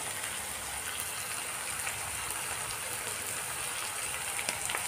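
Green peas frying in mustard oil and ghee in a steel kadhai, with a steady, even sizzle.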